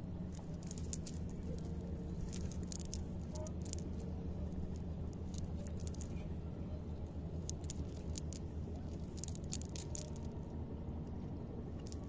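Rustling and crackling of a wet fishing net and water weeds being picked through by hand: many small sharp ticks over a steady low hum.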